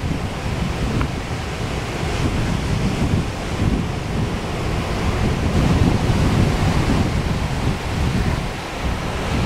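Ocean surf breaking and washing ashore, a steady rushing noise, with wind buffeting the microphone in uneven low rumbles.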